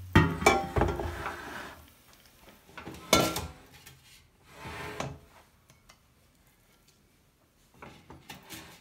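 Air fryer basket and a utensil knocking and clattering as a pizza is lifted out onto a ceramic plate. There are several knocks in the first second and a half, one sharp knock about three seconds in, a short scrape near the middle, and light clicks near the end.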